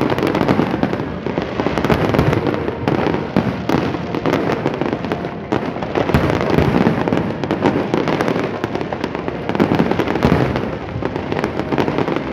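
Aerial fireworks display: many shells bursting in quick succession, a dense, near-continuous run of overlapping bangs.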